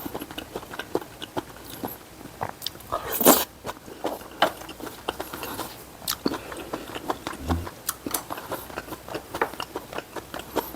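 Close-miked eating: chewing with many small wet clicks and smacks, and a short loud burst about three seconds in.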